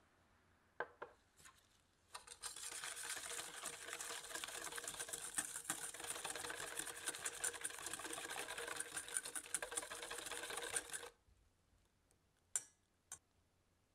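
Wire balloon whisk beating egg white and sugar in a stainless steel bowl: a fast, steady rattle of the tines against the metal lasting about nine seconds, which stops abruptly. A few light clicks come just before it starts and two more near the end.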